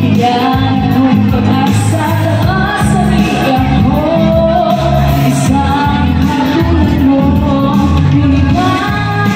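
A woman singing into a handheld microphone over an instrumental backing track, amplified through a PA sound system.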